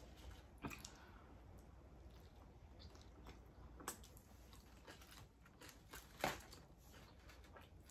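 Faint close-up chewing of a large mouthful of lamb gyro, with a few short soft clicks and rustles; the loudest click comes about six seconds in.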